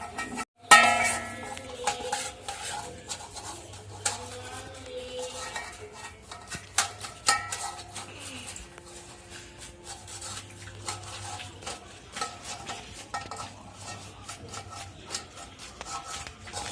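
Metal compressor parts clinking, knocking and scraping as they are handled and worked on, with one loud ringing clank near the start followed by irregular clicks and scrapes.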